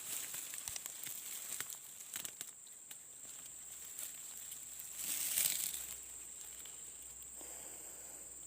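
Crackling rustle of leaves and brush being pushed through or handled, with scattered small snaps and a louder rustle about five seconds in, over a steady high-pitched tone.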